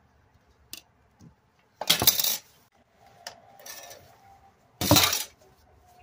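Two short bursts of clattering, hard items knocked or set down on a tabletop, about two seconds and five seconds in, with a few light clicks between.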